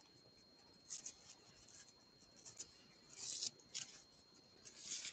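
Faint rustling and scraping of hands working yarn and crochet, in a few short soft bursts.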